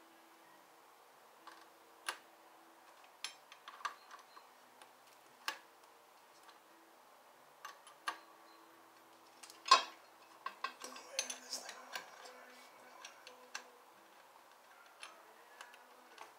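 Sparse metallic clicks and clinks of hand tools and hardware against a motorcycle as it is worked on by hand. The loudest clink comes just before ten seconds in, followed by a brief run of quicker clicks.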